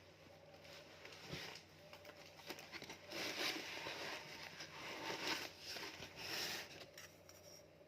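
Parcel packaging being handled and torn open: irregular rustling and crinkling, loudest from about three seconds in until near the end.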